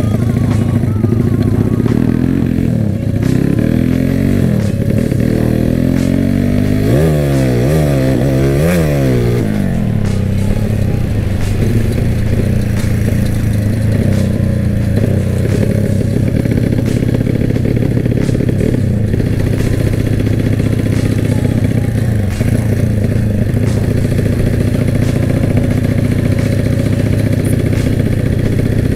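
Honda Megapro single-cylinder four-stroke motorcycle engine heard from the rider's seat while riding. It revs up and down through the first ten seconds, with three quick rising-and-falling rev swings around eight seconds in, then runs at a steady speed.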